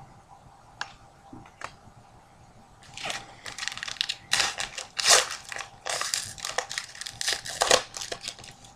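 The wrapper of a hockey card pack being torn open and crinkled by hand, in a dense run of crackling bursts after a couple of light taps.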